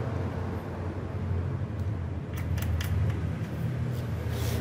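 Light clicks of metal parts being handled as an AC servo motor is fitted onto an aluminium CNC axis frame. A few come about two and a half seconds in and one near the end, over a steady low hum.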